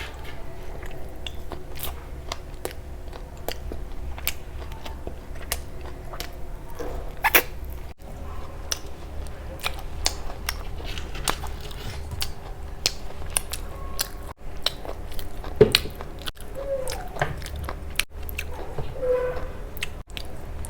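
Close-miked eating: chewing and biting with many short, sharp crunches and mouth clicks throughout.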